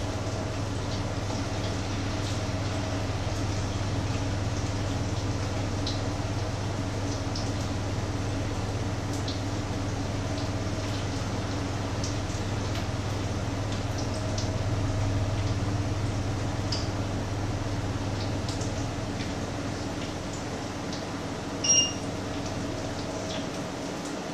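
Small pancakes frying in a pan, a steady sizzle with scattered small pops and spits, over a steady low hum. A short electronic beep sounds once near the end.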